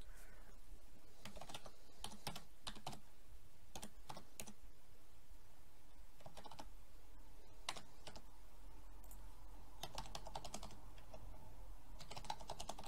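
Typing on a computer keyboard in short runs of keystrokes, with pauses between the runs.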